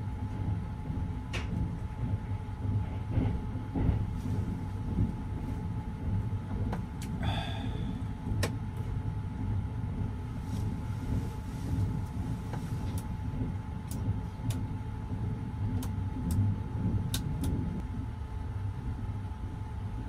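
Steady low rumble of the Sunrise Izumo/Seto 285-series electric sleeper train running, heard inside a private sleeper compartment. A faint steady hum runs under it, with scattered sharp clicks and a brief squeal about seven seconds in.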